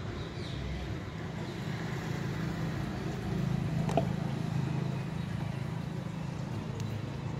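Steady low hum of a vehicle engine running nearby, with one short click about four seconds in.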